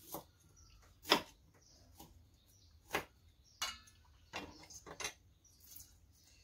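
Cleaver striking a wooden chopping block as a lime is cut: a handful of sharp knocks, roughly a second apart, with lighter clicks and handling in between.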